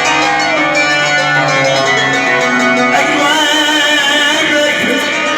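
Live Arabic band music with a male singer, instruments holding chords under the melody. In the second half a long wavering note is held.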